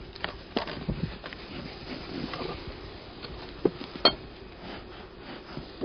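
Scattered light knocks and clacks of beehive equipment being handled at a stack of wooden hive boxes, with two sharper clacks close together a little past the middle, over the steady hiss of an old film soundtrack.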